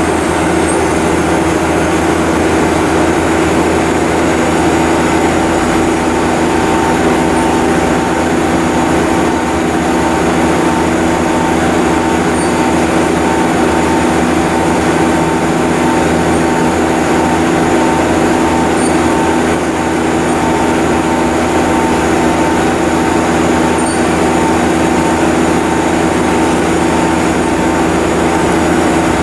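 Mazak IVS-200 CNC vertical turret lathe running under power: a steady machine hum with several fixed tones that holds level throughout.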